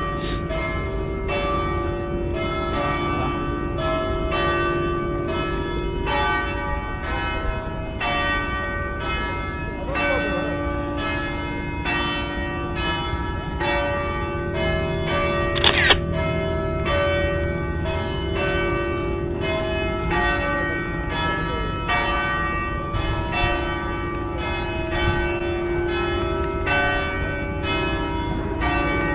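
Church bells ringing, a steady run of strokes about twice a second with each tone ringing on. About sixteen seconds in, a camera shutter clicks sharply.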